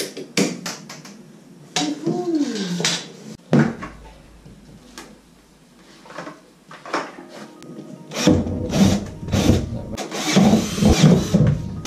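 Cordless drill boring into a plastic bucket lid in short runs, mixed with knocks and clatter of plastic tubing and pipe.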